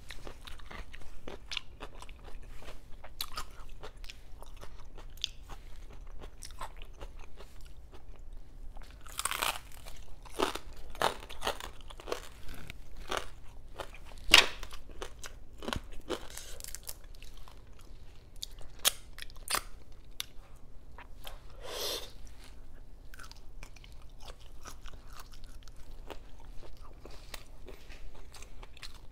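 A person eating by hand close to the microphone: wet chewing with irregular crunchy bites. The crunches come in clusters, with the loudest crack about halfway through.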